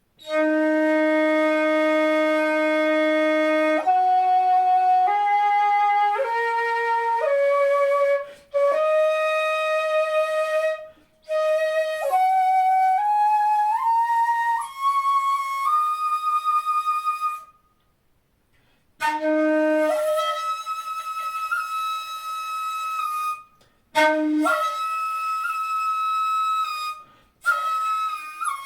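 Jinashi shakuhachi, 1.7 shaku long and pitched in D#, played solo. It opens on a long low note held about four seconds, then climbs note by note through two octaves to a high note. After a short break it holds long high notes, cut by brief pauses and two short dips to the low note.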